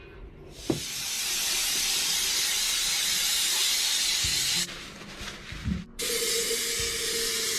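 Aerosol cleaner sprayed from a can onto a diesel engine's oil filter housing: a steady hiss of about four seconds, a break of over a second, then a second long hiss with a steady low tone under it.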